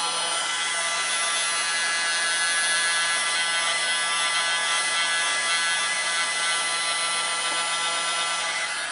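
Heat gun running steadily on its low setting: a fan-motor whir with a high-pitched whine.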